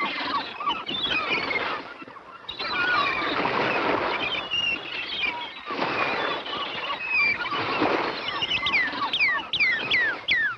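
Gulls calling over surf that washes in long surges. From about eight and a half seconds in, a northern cardinal sings a rapid run of steeply falling whistles.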